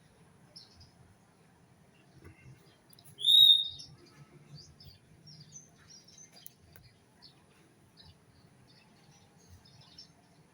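Small birds calling: one loud, clear whistled note about three seconds in, with faint short chirps scattered throughout.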